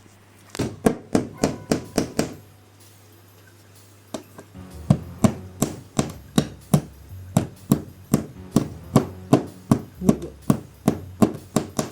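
Repeated hammer knocks tapping umbrella anchors into plasterboard: a quick run of knocks about half a second in, then steady knocks about three a second from about four seconds in, over background music.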